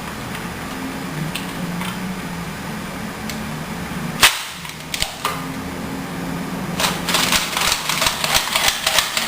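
Plastic Nerf dart blaster being worked by hand: one sharp, loud snap about four seconds in, two lighter clicks soon after, then a rapid run of plastic clicking near the end, over a steady low hum.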